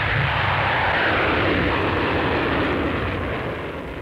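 Jet aircraft passing: a loud rushing engine noise that swells about a second in, then falls in pitch and fades toward the end, over a steady low rumble.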